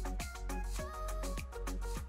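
Background music with a steady beat and bass.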